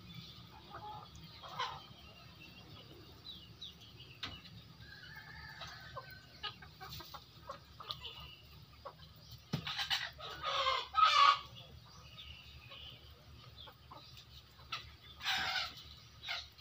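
Flock of Indonesian native chickens (ayam kampung) clucking as they forage, with scattered soft calls and short ticks. There is a run of loud calls about ten seconds in and another loud call near the end.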